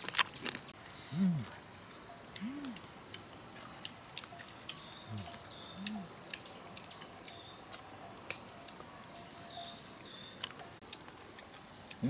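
Steady high-pitched drone of forest insects. Over it come four short low grunts in the first half and scattered light clicks.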